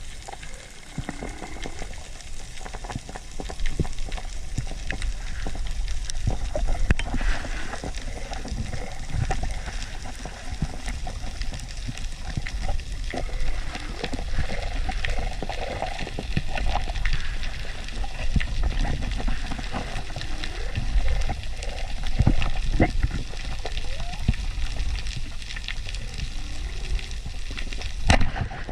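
Underwater sound on a reef: a dense, steady crackle of small clicks over a low rumble of moving water.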